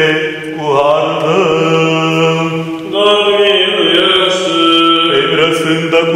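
Orthodox liturgical chant by male voices, one holding a low steady note beneath a slowly moving sung melody.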